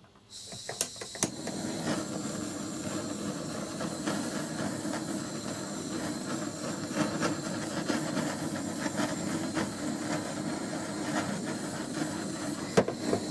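Butane gas torch on a canister burning with a steady hiss, scorching a wooden knife handle to darken it. There are a few sharp clicks about a second in, and the flame goes off just before the end.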